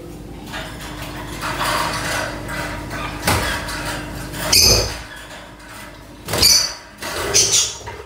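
Small wire birdcage rattling and clanking as it is handled, with a few louder knocks and rattles.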